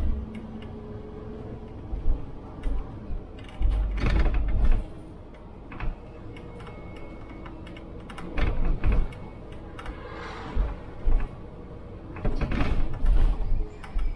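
City bus on the move, heard from the driver's seat: its engine runs under irregular rattles, knocks and clunks from the body and fittings, with heavy low thumps in clusters as it goes over bumps.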